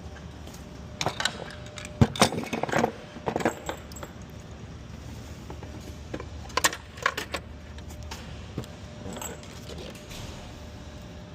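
Metal clinking and clattering of hand tools and hardware being handled during engine work, in several short clusters of sharp clicks.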